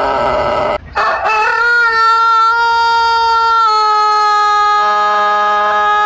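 Rooster crowing: one crow ends with a short break about a second in, then a long, steady high call is held, dropping slightly in pitch partway through.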